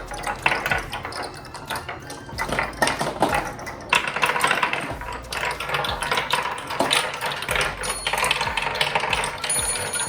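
A pack of marbles rolling and clattering down a marble-run track: a dense, continuous rattle of small clicks and knocks as they roll and hit the track and each other.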